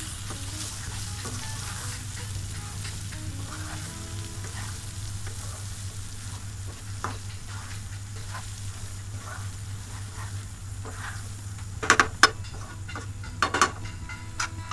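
Crushed ginger-garlic paste sizzling in oil in a nonstick pan while it is stirred with a wooden spatula. Near the end come a few sharp knocks of the spatula against the pan.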